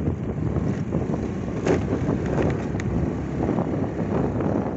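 Wind buffeting the microphone of a rider on a moving motorbike, over steady engine and road noise.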